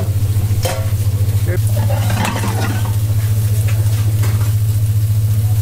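Fish fillets sizzling on a barbecue grill as flames flare around them, over a steady low pulsing hum, with a short metallic clatter about two-thirds of a second in and a louder crackle of noise around two seconds in.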